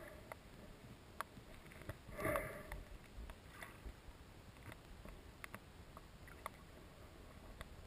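Underwater camera recording: faint scattered clicks and ticks, with one brief muffled rush of water about two seconds in.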